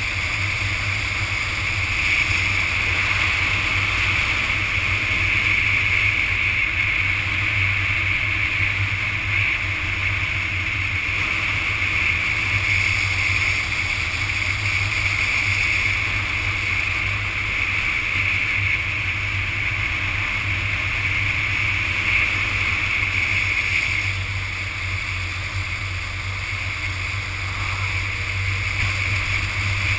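Motorcycle at road speed: a steady rush of wind and road noise over a low, even engine hum. It turns a little quieter for a few seconds about three-quarters of the way through, then picks up again.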